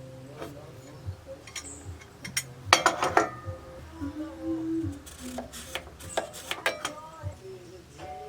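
Metal parts and tools clinking and clanking while a steel mounting bracket is handled and positioned: a series of sharp knocks, some ringing, the loudest about three seconds in. A person hums quietly between them.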